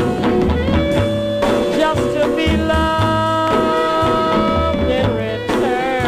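Music from a jazz vocal record: an instrumental passage of long held chords over repeating low bass notes, with a wavering vibrato melody line coming back near the end.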